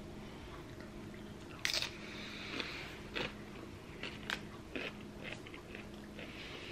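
Biting into a crisp tortilla chip from a plate of nachos with one sharp crunch a little under two seconds in, then chewing with several smaller crunches.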